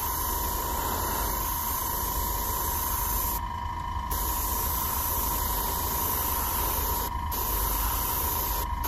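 Badger Sotar 20/20 airbrush spraying a thin paint mix: a steady hiss of air with a steady high whine alongside, the hiss dropping out briefly about three and a half seconds in and twice near the end.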